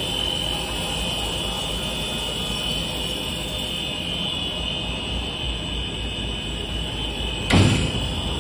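Machinery of a PP plastic-coated plywood production line running steadily: a constant hum with a steady high whine over it. One sudden thump sounds about seven and a half seconds in.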